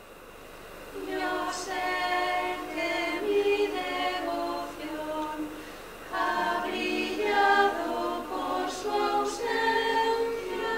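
A group of voices singing a cappella in held chords, coming in about a second in, with a short break in the middle.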